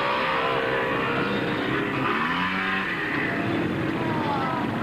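Quad (ATV) engines running, several at once, their pitch rising and falling as the riders throttle up and ease off.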